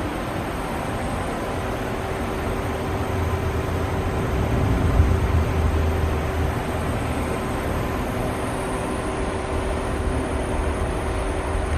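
Citizen M32 Swiss-type CNC automatic lathe running: a steady machine hum with a constant whine over it, the low rumble growing louder for a few seconds midway.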